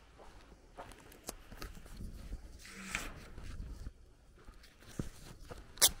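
Footsteps of a person walking on a dirt path, irregular soft steps, with one sharp, much louder click near the end.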